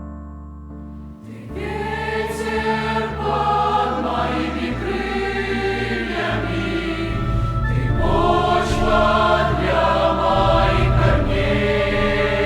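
A youth choir singing a Russian-language Christian worship song with keyboard accompaniment; the choir comes in about a second in over the soft keyboard introduction.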